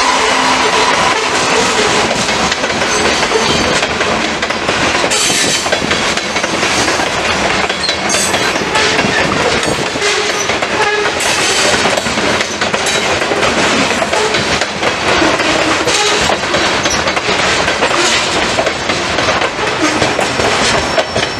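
Loaded covered hopper grain cars of a freight train rolling past close by: a loud, steady rumble of steel wheels on rail, with repeated clacks as the wheels cross rail joints. A steady tone from the just-passed locomotives fades out in about the first second.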